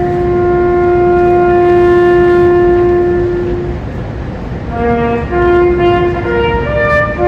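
A bugle sounding a ceremonial call: one long held note, then a run of shorter notes stepping between the bugle's few pitches.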